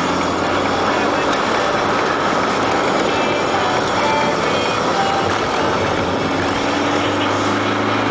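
Car engine and tyre-and-road noise heard from inside the cabin while driving, a steady rush with a low engine hum that grows stronger in the second half.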